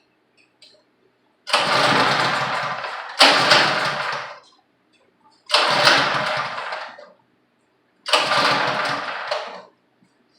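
A 163 cc pressure-washer engine is pull-started four times. Each time it catches and runs for about a second and a half, then fades and dies. It won't keep running, which the owner puts down to old, poor fuel.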